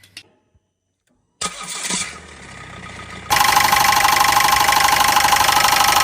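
A car engine being cranked by its starter, then, about three seconds in, a much louder steady running sound carrying a strong high-pitched tone.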